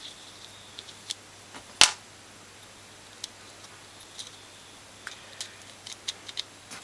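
Small plastic and metal parts of a dismantled starter relay clicking and tapping as they are handled and pushed together: scattered light ticks, the sharpest about two seconds in.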